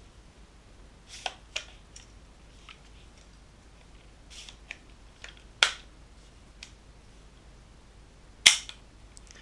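Metallic clicks and clacks from handling a VFC HK417 gas blowback airsoft rifle, a few light clicks followed by two sharp clacks, one about halfway through and a louder one near the end.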